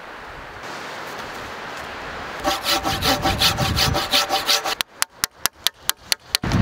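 Hand saw cutting through a wooden beam: quick, rhythmic back-and-forth strokes start about two and a half seconds in. Near the end they give way to a fast run of short, sharp, separate strokes.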